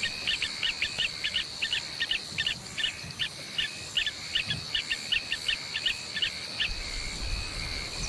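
African bush ambience at dusk: a steady high insect trill with a bird's rapid chirping, about three short calls a second, which stops about six and a half seconds in; a low rumble comes in near the end.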